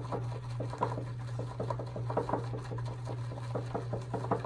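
Shaving brush with a grey wolf knot whipping shave soap into lather in a shaving scuttle: quick, rhythmic swishing strokes, several a second, over a steady low hum.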